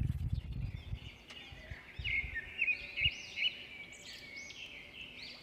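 Birds chirping and calling: a run of quick up-and-down chirps, loudest around the middle, over a low rumbling noise that is strongest in the first second.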